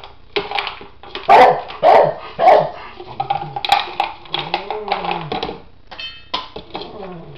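Beagle barking to demand her food: three loud barks about half a second apart, starting a little over a second in. They are followed by drawn-out yowls that rise and fall in pitch, then more barks.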